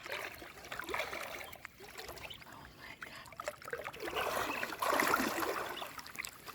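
Shallow water splashing and sloshing irregularly, loudest about four to five and a half seconds in.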